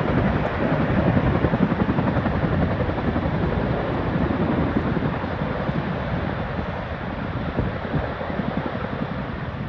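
Several UH-60 Black Hawk helicopters running together with rotors turning, some lifting off: a steady blend of turbine noise and fast rotor beat.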